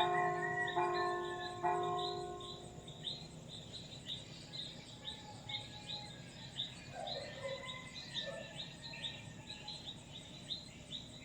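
Church bell struck three times in the first two seconds, about a second apart, each strike ringing on and fading away. Steady, rapid high-pitched chirping from birds continues throughout.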